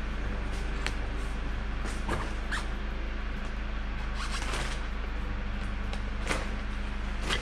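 A steady low hum, with a few light knocks and rustles as packed camping gear lashed with rope is handled, and a short squeak about two and a half seconds in.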